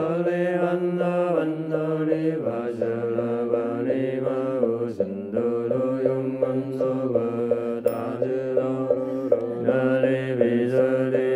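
Buddhist mantra chanted to music: voices intone syllable by syllable in an even rhythm over a steady low drone, which steps down in pitch a couple of seconds in.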